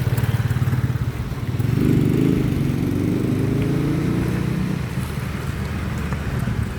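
A motor vehicle's engine running close by on the street, a steady low rumble whose pitch swells about two seconds in and drifts slowly down until about four and a half seconds in, as a passing vehicle does.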